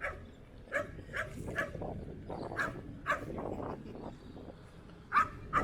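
A dog barking repeatedly in short, sharp barks, some in quick pairs.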